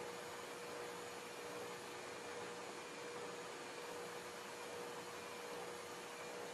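Low steady hiss with a thin, steady hum underneath: room tone, with no distinct sound events.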